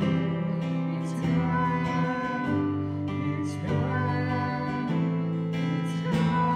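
Live worship band playing a slow song: acoustic guitar strummed over held keyboard chords, with voices singing.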